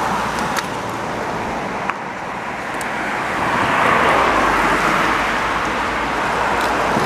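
Road traffic passing: a steady rush of car tyres and engines that swells to a peak about four seconds in and then eases off, with a couple of sharp clicks early on.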